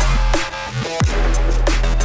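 Electronic dance music with a heavy bass line and a steady beat of kick drums.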